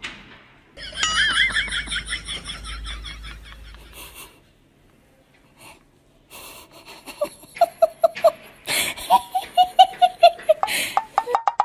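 A person laughing: a high, wavering laugh for the first few seconds, then, after a short pause, quick runs of short 'ha' pulses.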